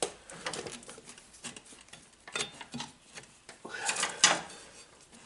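Scattered metallic clicks, knocks and scrapes of hand tools and parts as a motorcycle's rear brake caliper is worked loose, with a louder clatter about four seconds in.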